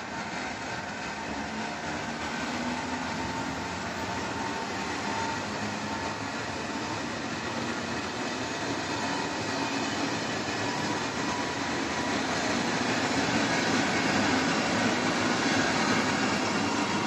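Electric multiple-unit passenger train running past on the far track: a continuous rumble of wheels on rail with a faint steady whine, growing louder toward the end.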